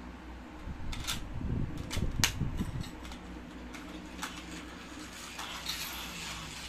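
A small plastic toy car is pushed and handled on a floor mat, giving a few sharp clicks and a low rolling rumble about a second in. A room fan hums steadily underneath.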